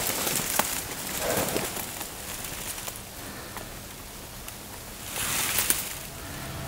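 Dry grass and brush rustling and brushing against clothing in irregular bursts, with scattered light crackles, a quieter stretch in the middle and a louder rustle about five seconds in.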